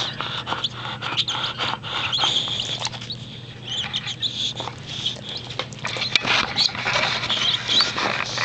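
Baby cockatiel making quick raspy begging calls with a few short rising chirps, among scattered clicks and taps, over a steady low hum.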